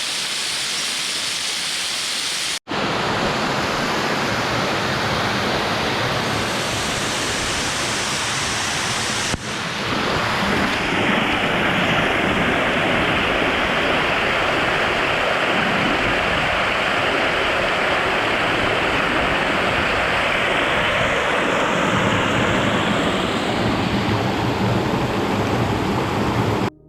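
Steady rush of a waterfall's falling water, with no pitch to it. It breaks off abruptly twice, about two and a half and nine and a half seconds in, and comes back louder each time.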